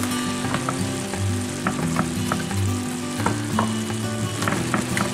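Ground beef and onion sizzling as they brown in a cast-iron skillet, with scattered light clicks from the knife and spatula.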